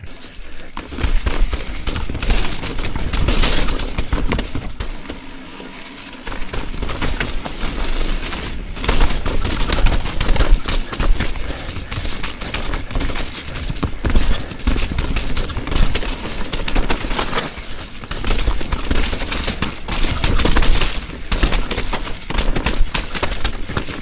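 Electric mountain bike descending a dirt singletrack: tyre roar on the dirt with constant irregular rattling and clattering of the frame and drivetrain over roots and rocks, and a low rumble of wind on the microphone. It swells about a second in and eases off briefly partway through.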